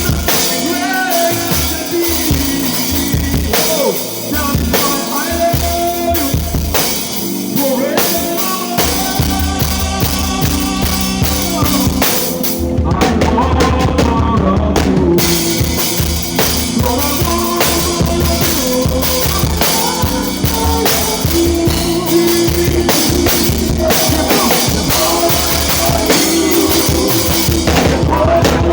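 Live worship band playing a groove: drum kit with bass drum, snare and rimshots driving under bass and melodic lines, in a rough, poorly balanced recording. The cymbals drop out for about two seconds near the middle, then come back.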